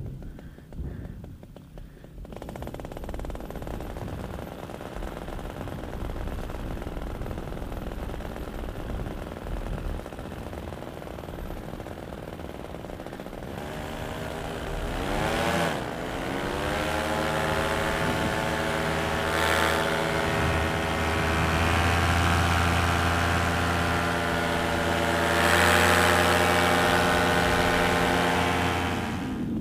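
Paramotor engine and propeller. For the first half there is mostly a rushing noise with no clear engine note. About halfway through the engine is throttled up: its pitch dips, then rises, and it settles into a steady, louder drone as the wing climbs away from the snow.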